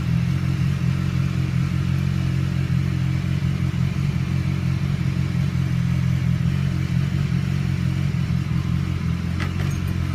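BMW S1000XR's inline-four engine idling steadily through an Akrapovic slip-on exhaust with its baffle removed.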